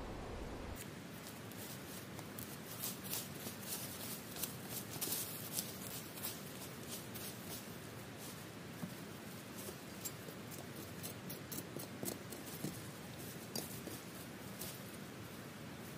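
Dry fallen leaves and twigs crackling and rustling under boots and hands, a faint, irregular run of crisp snaps, densest in the first half.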